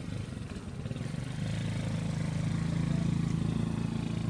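A motor vehicle engine runs steadily nearby with a low hum, growing louder about a second and a half in and then holding.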